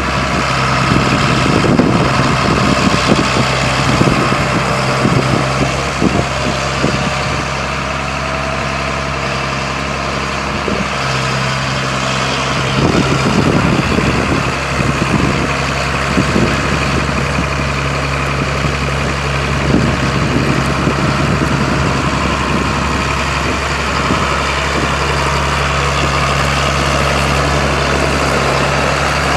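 John Deere 7800 tractor's 7.6 L six-cylinder diesel engine running at a steady idle.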